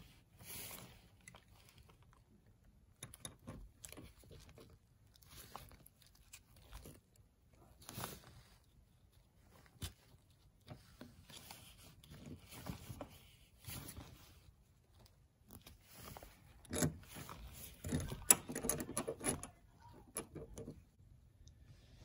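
Scattered handling noises of gloved hands working a metal padlock hasp set in epoxy on a fridge door: short clicks, scrapes and rustles, busiest and loudest near the end.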